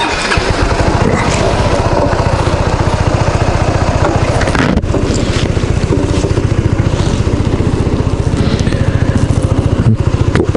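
Yamaha Majesty S scooter's single-cylinder four-stroke engine running while riding, its firing pulses steady under a constant hiss.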